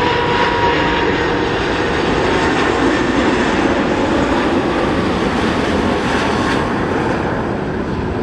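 Jet airliner's engines, loud and steady, as a plane passes close by.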